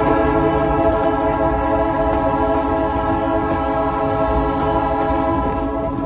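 Diesel locomotive horn held in one long blast over the low rumble of the moving train: the horn of the ex-U.S. Army Baldwin RS-4-TC switcher No. 4005 as it hauls the train.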